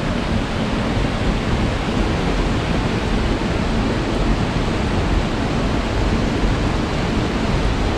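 Steady, even rush of fast-flowing water.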